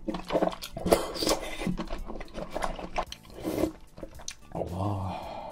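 Close-miked mouth sounds of sipping spicy jjamppong broth from a wooden spoon: wet lip smacks and clicks, with a longer slurp near the end.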